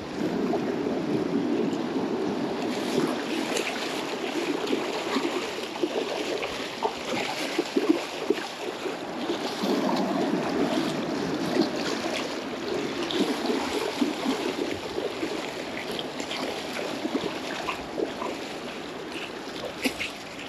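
Shallow surf washing and splashing over the sand, with wind on the microphone.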